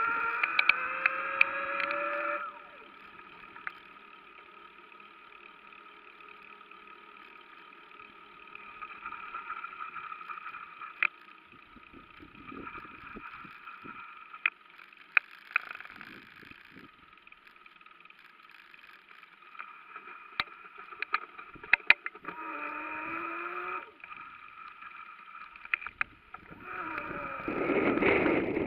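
Bicycle in motion: a steady hum from the rolling wheels with scattered sharp knocks from bumps in the road. The hum grows louder and glides in pitch briefly near the start and again about two-thirds of the way through, and a low rumble swells near the end.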